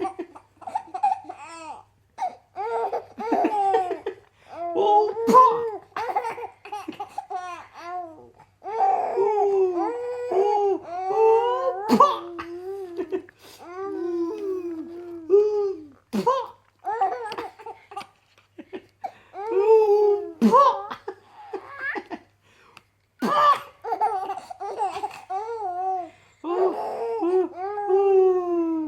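A four-month-old baby laughing hysterically in repeated bursts of high, squealing laughs, set off by a man's mouth noises; several sharp short pops from those mouth noises cut in between the laughs.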